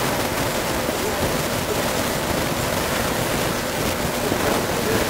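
A steady rushing background noise with no distinct events.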